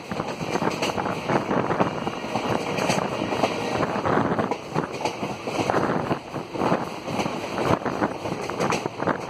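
Moving passenger train heard from inside at an open window: the steady running noise of the carriage, with wind buffeting the microphone in uneven gusts.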